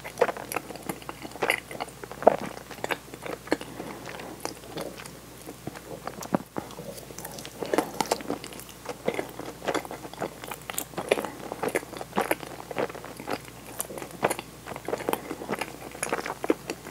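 Close-miked chewing of butter-fried daifuku mochi, with many irregular crisp clicks and smacks of the mouth.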